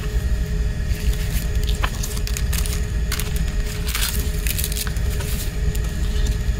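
Paper and thin card rustling and crackling as a CD booklet and insert card are handled, with scattered crinkles that peak about four seconds in, over a steady low room rumble.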